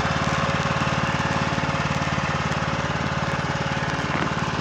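Husqvarna riding lawn mower engine running steadily, with a fast, even low throb.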